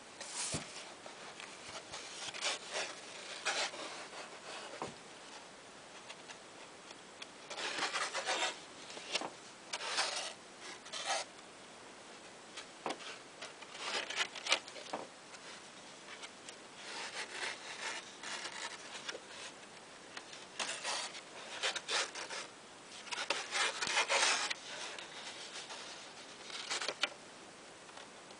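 Pages of a hardcover book being turned and handled by hand: paper rustling and rubbing in short, irregular bursts.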